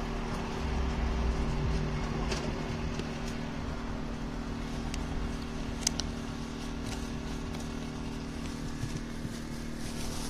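Steady low hum of an idling car engine heard from inside the cabin, with a few light clicks and one sharp tick about six seconds in.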